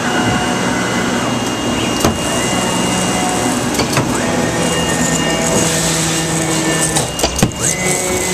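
2013 Autometrix Advantage plotter/cutter running, its drive motors whining in held tones that step up and down in pitch as the gantry and head move and change direction, over a steady hiss, with a few sharp clicks as the tool works.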